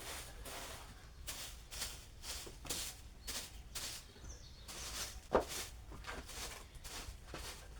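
Broom sweeping a kitchen floor in quick swishing strokes, about two a second, with a short pause a little past halfway and one sharper knock just after it.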